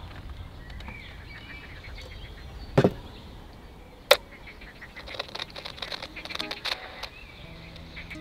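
A small portable MW/SW transistor radio is set down on a counter with a knock, then clicks as it is switched on. It crackles with static while being tuned, and music starts to come through near the end. Faint bird chirps about a second in.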